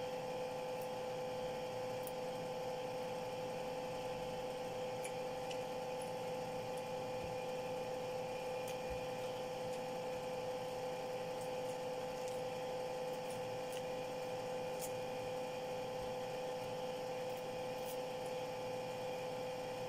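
A steady mid-pitched electrical hum, unchanging throughout, with faint scattered ticks and light crackles as pomelo flesh is pulled apart by hand.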